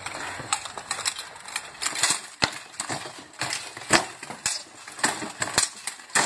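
Sword blows landing on shields and steel armour in a live armoured fight: an irregular series of sharp clashes and knocks, about three a second.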